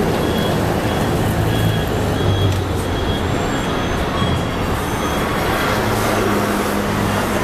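Street traffic: the engine of a large road vehicle such as a bus or truck running close by, a steady low rumble and hum, with faint short high tones repeating during the first few seconds.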